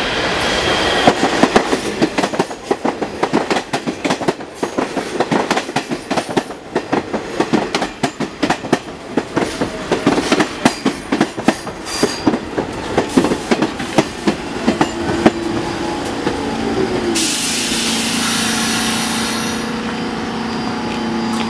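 R46 subway train pulling into the station: its wheels clack over the rail joints in a fast, uneven rhythm as the cars run past. Near the end a falling whine marks it slowing, then a loud hiss of air lasting a couple of seconds and a steady hum as it comes to a stop.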